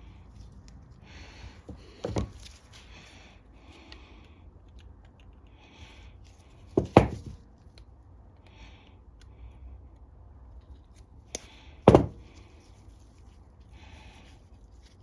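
Hand work on a small-engine carburetor: parts and tools being handled with short rustles, and three sharp knocks about two, seven and twelve seconds in, the last two the loudest.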